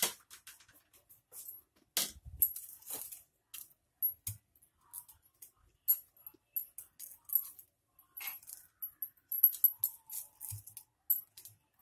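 Scattered light taps and clinks as fried potato balls are set down by hand on a glass serving plate. They come irregularly, with a quicker run of them near the end.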